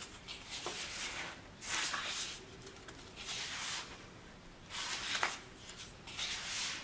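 Large 12-by-12 sheets of patterned paper being turned over one after another by hand, a papery rustle and swish about five times.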